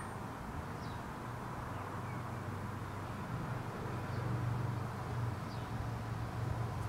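Outdoor garden ambience: a steady low hum of a distant motor, a little louder in the second half, with a few faint short bird chirps.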